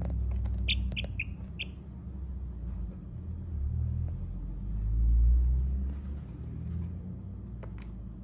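Baby chicks peeping: a few short, high peeps in quick succession about a second in, then one faint peep near the end. Under them runs a low rumble that swells in the middle.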